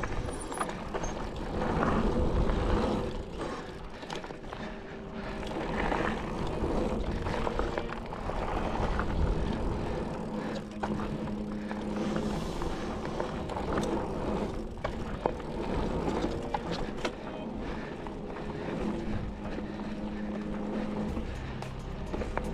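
Mountain bike being ridden over a dirt trail: a steady rushing noise of tyres and wind, with frequent short rattles and clicks from the bike over the rough ground.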